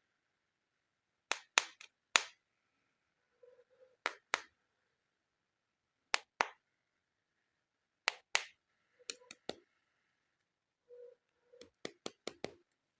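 Sharp clicks and taps of hard plastic toy animal figures being handled and set down, coming in pairs and small clusters with short gaps between.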